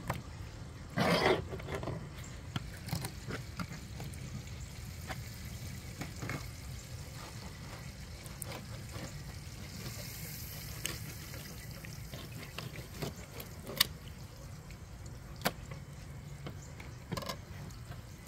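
Wet, squelching sounds of a fillet knife cutting catfish flesh against a plastic table, with scattered sharp taps and clicks. A louder scraping rustle comes about a second in.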